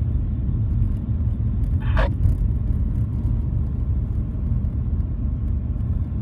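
Steady low rumble of a car driving at cycling pace, heard from inside the cabin: engine and tyre noise. A brief, sharper sound cuts through about two seconds in.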